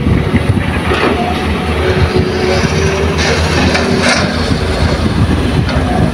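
Diesel engines running with a steady low rumble: a loaded light dump truck pulling away and a Kobelco SK200 hydraulic excavator working beside it.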